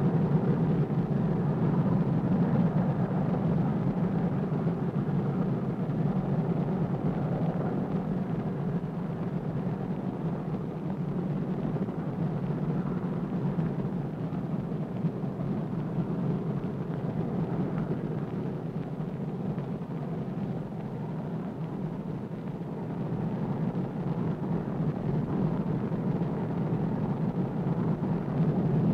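Steady drone of the Boeing B-29 Superfortress's four radial piston engines in flight. It fades a little about two-thirds of the way through and swells again near the end.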